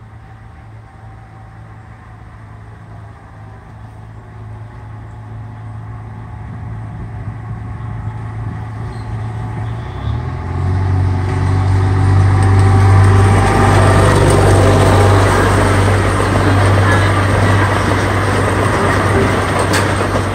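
Miniature park train approaching along its track and passing close by: a steady engine drone that grows louder over about ten seconds, loudest as the train goes past, with rising rumble and rattle of the cars on the rails.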